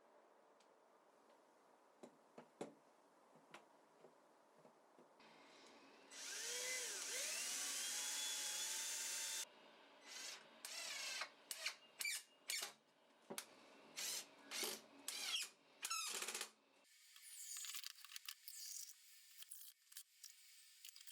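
Power drill running steadily for about three seconds, then run in a series of short trigger bursts, each rising quickly in pitch. A few light clicks come before it.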